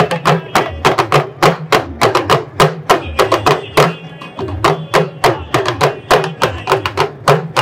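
Hourglass talking drums (kalangu) played with sticks in a fast, driving rhythm: sharp strokes several times a second over low, pitched drum tones that shift up and down.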